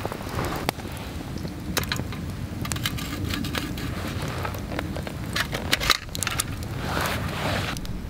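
Wood campfire crackling with scattered sharp pops over a low steady rumble, with brief rustles of dry leaves near the start and again about seven seconds in.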